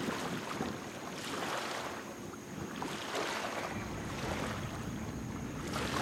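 Small waves washing against the shore, a soft rush that swells every second or two, with wind on the microphone rumbling more heavily from about four seconds in.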